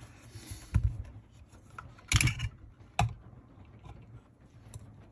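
Scattered clicks and knocks of a flat-head screwdriver and small plastic and metal RC-car parts being handled and worked at, with a short sharp rattle about two seconds in and a single click about a second later.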